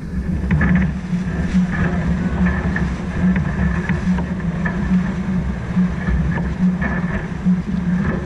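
Wind and water noise aboard a sailboat under way: a steady rush of wind on the microphone and water along the hull, with a low hum that swells in quick regular pulses, roughly every half second or so.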